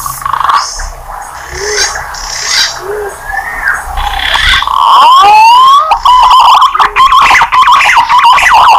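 Green pigeon (punai) lure calls: a run of whistled notes that bend up and down. About five seconds in comes a long rising whistle, followed by a quick warbling series of notes.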